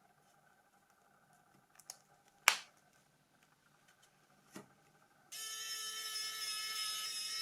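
A few small clicks and one sharp snap as parts of a Nokia E90 phone are handled and fitted back together. Music with held notes starts suddenly about five seconds in.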